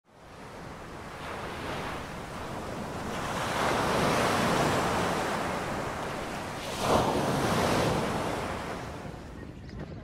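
Ocean surf: waves breaking and washing in a steady rushing hiss that swells over the first few seconds. One sharper wave crash comes about seven seconds in, then the surf eases off.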